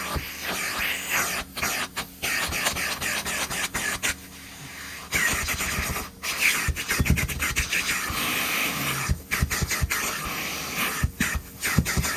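Vacuum cleaner hissing with its suction air while it is picked up and handled, with scraping, rubbing and knocking from parts being fitted. The hiss dips out briefly several times.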